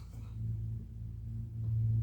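A steady low hum, swelling slightly near the end.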